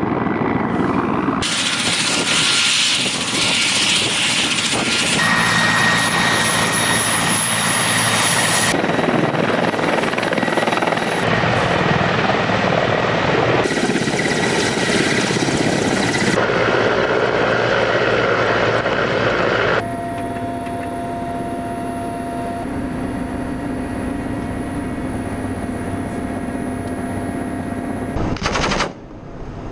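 Mi-24 and Mi-8 military helicopters' turboshaft engines and rotors running, in a string of shots that cut abruptly every few seconds. About two-thirds through, it changes to a quieter, steadier engine whine and hum heard inside the cockpit.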